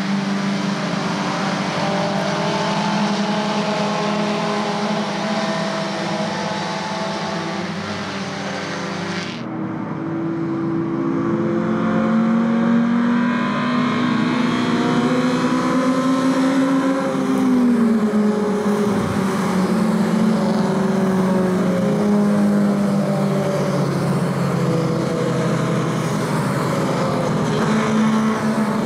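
Several small four-cylinder 1300 cc touring-car engines running hard on a wet track, their pitches rising and falling as the cars pass and change gear. A steady hiss lies over them and cuts off suddenly about nine seconds in.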